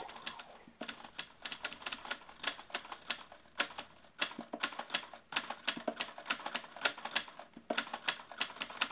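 Rapid, irregular clicking: a steady run of sharp clicks, several a second, unevenly spaced.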